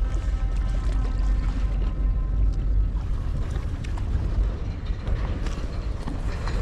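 Steady rumbling noise of wind buffeting the microphone, with the sea underneath.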